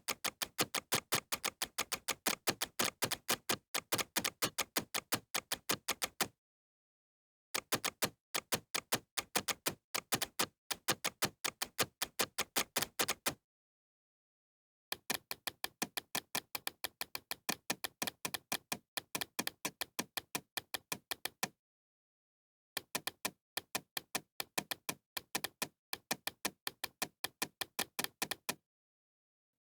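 Bandicam screen recorder's computer mouse-click sound effect, clicking rapidly several times a second in four runs of about six seconds each, with short silent breaks between them.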